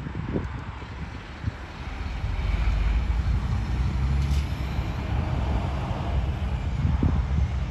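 A heavy truck towing side-tipper trailers drives past close by, its engine and tyres making a low, steady rumble that grows louder about two seconds in.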